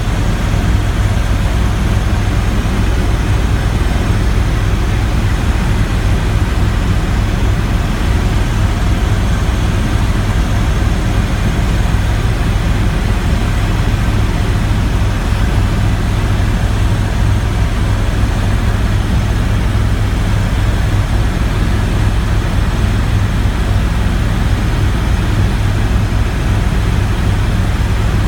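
Helicopter in flight: a steady, loud drone of rotor and engine with a strong low hum, unchanging in level throughout.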